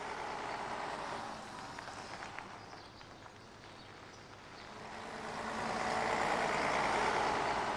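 Street traffic led by a double-decker bus engine. It dips, then swells as the bus passes close and is loudest about six to seven seconds in.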